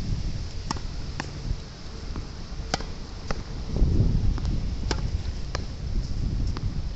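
Tennis ball being hit against a practice wall: sharp racket-and-wall hits in pairs about half a second apart, coming roughly every two seconds. Under them, strong wind buffets the microphone with a low rumble that grows louder about four seconds in.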